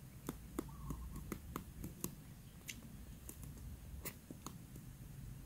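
Kingfisher nestlings shuffling on the dry nest litter in their earthen burrow, making faint, irregular clicks and scratches, with one faint short chick call about a second in.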